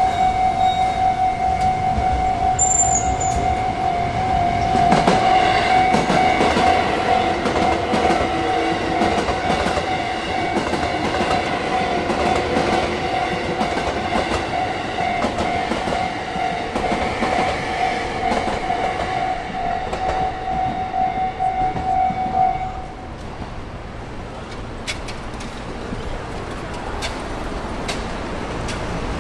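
Railway level-crossing warning bell ringing with a steady, pulsing tone while a train runs over the crossing, its wheels clattering over the rail joints. The bell cuts off about 23 seconds in, and the train's running noise carries on more quietly.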